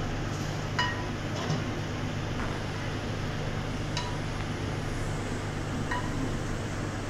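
A metal ladle clinks four times against the rims of a cooking pot and a bowl as broth is ladled out, with short ringing taps over a steady low hum.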